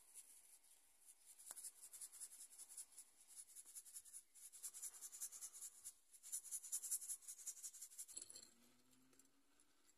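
Fine dry grit poured from a paper packet, a fast faint pattering of granules landing on a board. It grows busier near the middle and stops about eight seconds in.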